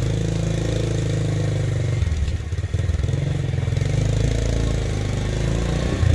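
Motorcycle taxi's small engine running steadily, easing off briefly about two seconds in and then picking up again.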